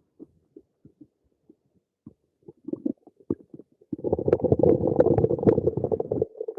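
Human stomach gurgling: a few short, scattered gurgles, then a loud continuous gurgle from about four seconds in that lasts a little over two seconds.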